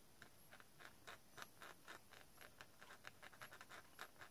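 Faint scratching of an X-Acto knife blade scraping the surface of cold-press watercolour paper to remove a stray spot of black, in short repeated strokes about three a second.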